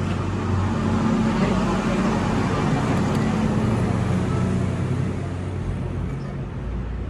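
A steady low engine or motor hum with a noisy mechanical wash over it, easing slightly near the end.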